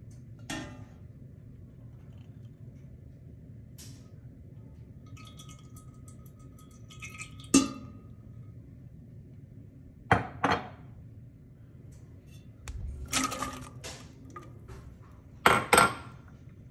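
Kitchen clatter at a stainless steel pot: a handful of sharp clinks and knocks as things are set against and into the pot while olive oil and chopped onion go in, over a steady low hum. The loudest knocks come about halfway through and again near the end.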